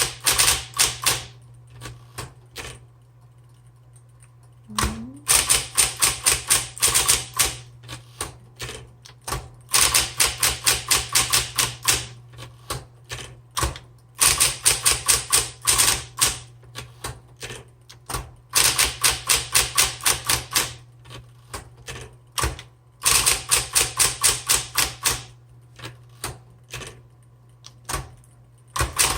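Smith Corona Electra 120 electric typewriter typing in quick runs of sharp key strikes with short pauses between runs, its motor humming steadily underneath.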